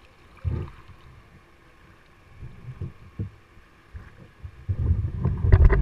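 Low thumps and rumbling from a paddled inflatable kayak, picked up by a camera on its bow, building near the end to a louder burst of knocks and splashy clicks.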